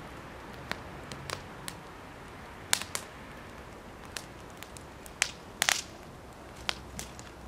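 Wood fire crackling in a fire pit: irregular sharp pops and snaps, a few much louder than the rest, including a quick cluster a little past the middle.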